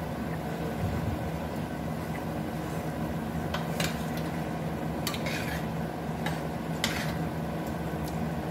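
Spoons or forks clinking against plates a few times while food is served and eaten, over a steady low hum.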